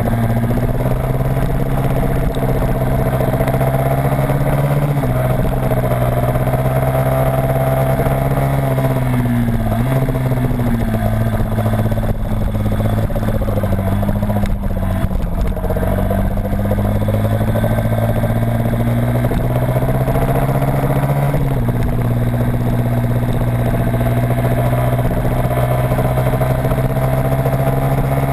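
Engine of a small vehicle heard onboard at speed on a circuit, running under steady load. Its pitch drops abruptly about five seconds in and again near twenty-one seconds, like gear changes, and runs lower and uneven for a few seconds in the middle through a corner. Steady wind and road rush lie underneath.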